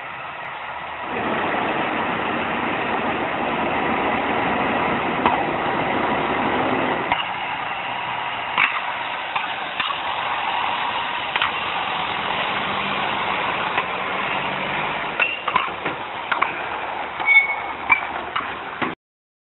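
Heavy semi-truck towing a lowboy trailer, its diesel engine running as it pulls in slowly. Scattered clicks and clanks come from the second half, with a few short squeaks near the end.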